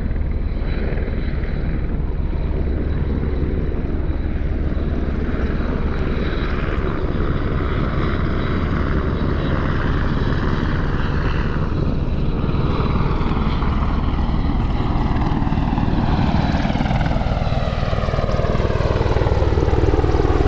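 A steady engine drone that grows a little louder near the end, with a slow downward sweep running through it in the second half.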